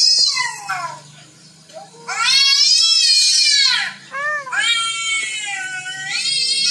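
Recorded cat meows played back from a video: a run of long, high-pitched meows, each rising then falling in pitch and lasting one to two seconds, with a short one in between. A faint steady hum sits underneath.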